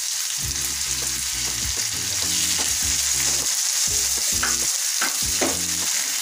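Chicken pieces frying in a nonstick pan in a cream and lemon-juice sauce, with a steady hiss as a spatula stirs and turns them; a few sharper spatula scrapes come between about four and five and a half seconds in.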